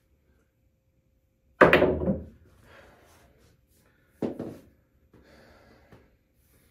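Pool balls in play: a sharp crack of the cue striking the cue ball and balls colliding about a second and a half in, the loudest sound, then a second, softer ball knock about four seconds in, with faint knocks and rolling between.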